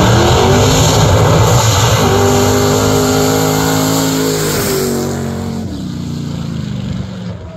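Two drag-racing vehicles, an older full-size pickup truck and a sedan, launching hard off the line at full throttle. The engine note climbs, drops once about four and a half seconds in, then fades as they pull away down the strip.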